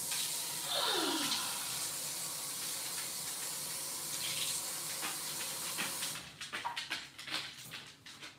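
Kitchen faucet running into the sink while leafy greens are rinsed, a steady hiss of water, with a short falling tone about a second in. In the last couple of seconds, light clicks and knocks of handling.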